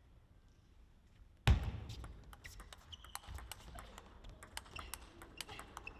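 Near silence, then a sudden heavy thump about a second and a half in, followed by many short, irregular clicks of table tennis balls on bats and tables in a large gymnasium hall.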